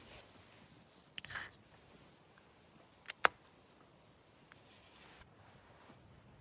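A short rustle about a second in, then two sharp clicks a moment apart just after three seconds, the second much louder, with faint low background noise between.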